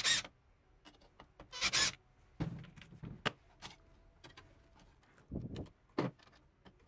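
Screwdriver turning the mounting screws of a liquid-cooler pump block and the block being handled. Two short scrapes, then scattered clicks and a few dull knocks, some seconds apart.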